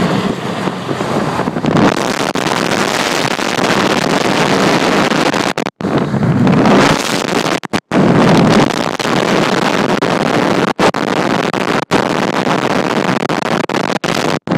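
Loud wind buffeting a phone microphone held at an open car window at freeway speed, mixed with road and traffic noise. The sound cuts out briefly several times.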